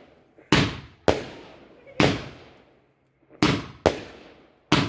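Multi-shot firework cake firing its finale: six loud bangs at uneven spacing in under five seconds, each fading away in a long echo.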